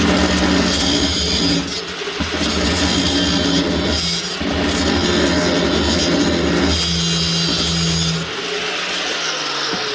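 Power tool with a cutoff wheel running and cutting into a threaded metal drain pipe stub, with the load easing off briefly a couple of times. Near the end it is switched off and winds down, its pitch falling.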